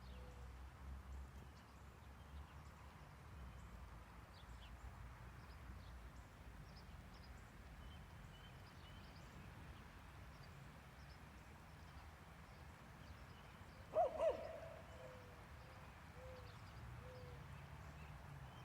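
Faint outdoor ambience with scattered small bird chirps. About two-thirds of the way through, an animal gives two short, loud calls close together, followed by a few fainter, lower notes.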